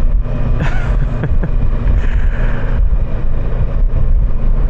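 Kawasaki Versys 650 parallel-twin motorcycle engine running steadily under way, with wind buffeting the helmet-mounted microphone.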